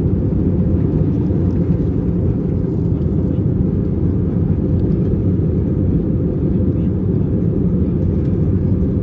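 Steady low roar of an Airbus A320 in flight, heard inside the cabin: airflow and CFM56 turbofan engine noise, even throughout with no change.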